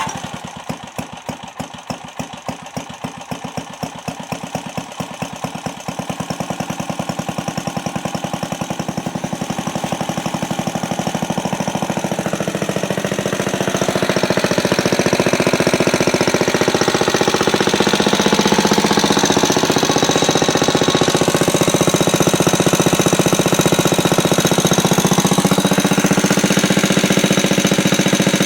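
Small single-cylinder Briggs & Stratton engine on a vintage Eclipse reel mower catching and running. The separate firing beats come faster and louder over the first dozen or so seconds, then it settles into a steady, fast run.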